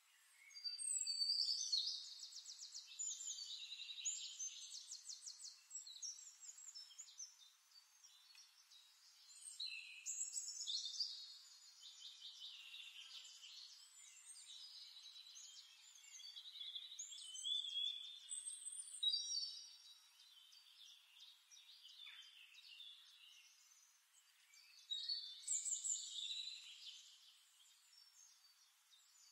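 A songbird singing in rapid high trills and warbled phrases, coming in several bursts with quieter stretches between them.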